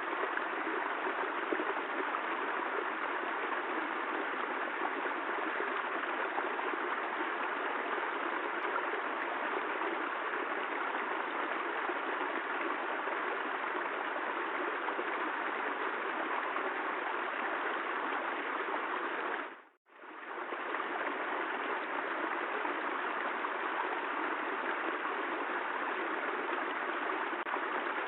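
Steady rain, an even rushing hiss with no single drops standing out, that fades out for a moment about twenty seconds in and comes straight back.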